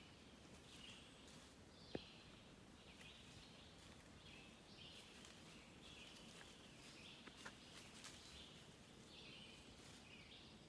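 Faint woodland ambience with a bird calling over and over in short high phrases, about once a second. A single sharp click about two seconds in.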